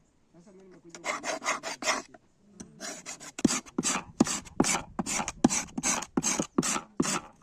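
Rhythmic scraping strokes of a hand file or rasp worked back and forth. A quick run of strokes comes about a second in, then steady strokes about two a second from midway.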